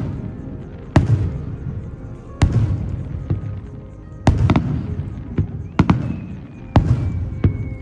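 Aerial firework shells bursting overhead: about half a dozen sharp, loud booms, irregularly spaced over eight seconds, each trailing off in a rolling echo.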